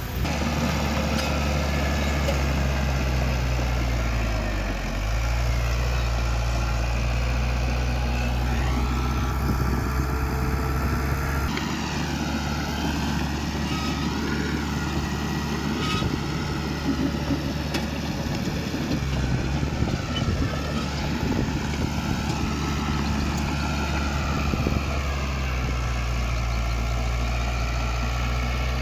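Heavy earthmoving machine's diesel engine running steadily under work, with a higher whine that rises and falls every few seconds.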